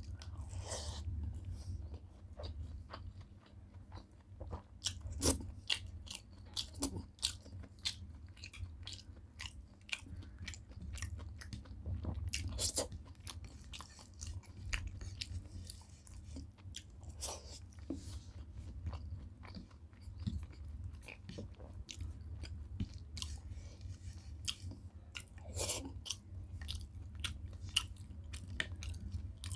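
Close-miked chewing of mouthfuls of rice and dal eaten by hand, with many short sharp mouth clicks and smacks scattered throughout. A steady low hum runs underneath.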